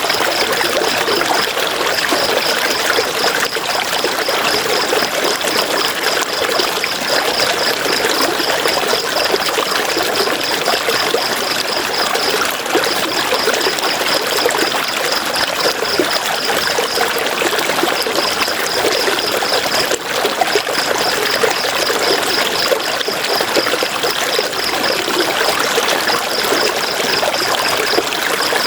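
River water flowing in a steady rush and trickle. Over it runs a high, rapid pulsing sound that comes in spells of several seconds with short breaks.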